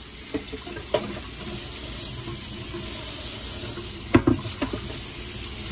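Food sizzling steadily in a skillet on a gas stove, with a few sharp knocks from handling kitchenware, the loudest about four seconds in.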